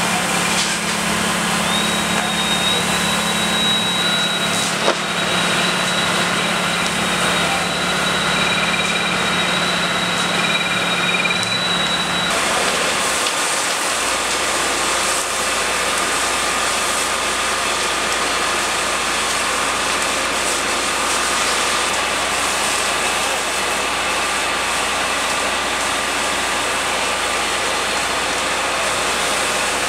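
A fire engine's engine runs steadily to drive the pump, under a constant rush of noise. A thin high whistle holds for about ten seconds in the first half, and the sound shifts abruptly about twelve seconds in.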